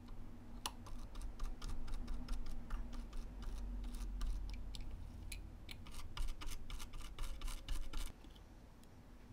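A small brush scrubbing a tiny watch movement part against the bottom of a small clear jar to clean it: quick, irregular scratchy clicks and taps that stop about eight seconds in.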